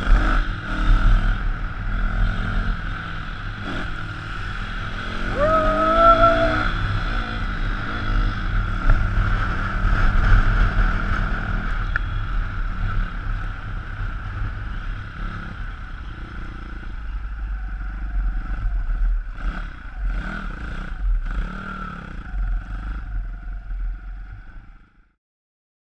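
160 cc pit bike's single-cylinder four-stroke engine running as it is ridden along, revving up briefly about five seconds in; the sound cuts off suddenly near the end.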